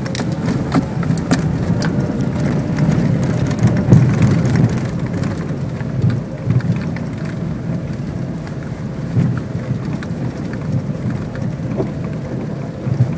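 Renault Megane II driving over potholes and rough road: a steady low road rumble with scattered sharp knocks from underneath. The knocks come despite an all-new suspension and steering, and the owner places them around the subframe, left and right.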